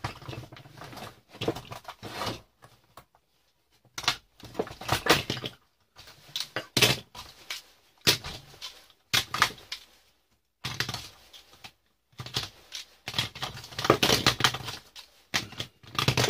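Plastic circuit breakers and covers being prised and snapped off the metal rails of a fuse box, with clicks and clatter of plastic parts dropped onto a workbench, in irregular bursts with short pauses between.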